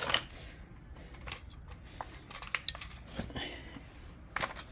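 Stihl 180 chainsaw being pulled over on its recoil starter to check that the engine turns over and isn't seized: a handful of separate clicks and short rattles.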